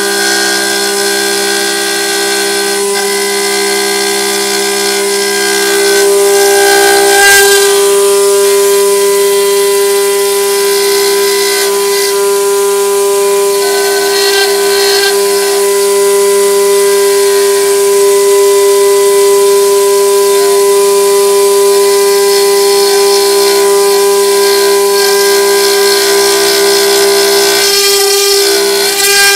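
Water-cooled spindle of a rotary stone CNC router carving a stone sculpture: a steady whine over the hiss of the bit cutting stone.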